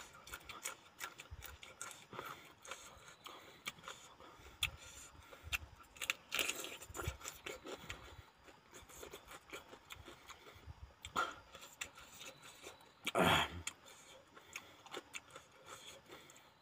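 Close-up eating sounds: chewing, with many small clicks and scrapes of a spoon and fingers on a metal plate. A louder burst of noise comes about two-thirds of the way through.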